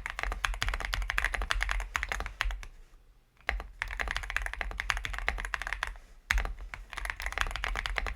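Typing on an XVX M67 Jadestone 65% mechanical keyboard: a fast, dense run of key clicks, with a brief pause about three seconds in.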